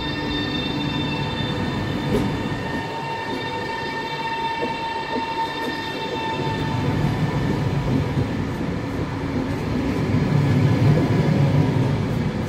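PKP Intercity ED250 Pendolino electric trainset rolling slowly past along the platform. A steady whine at several pitches fades out about halfway, while the low rumble of the train grows louder toward the end.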